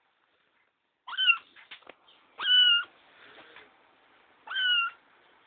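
Kitten meowing three times, short high-pitched calls a second or two apart.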